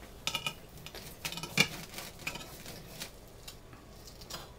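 Knife and fork carving a roast on a ceramic plate: a series of light metal-on-china clinks and scrapes, the sharpest about one and a half seconds in.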